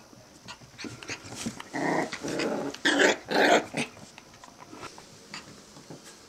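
Five-week-old Australian Terrier puppies growling in play: a rough growl about two seconds in, then two short, louder calls around the three-second mark.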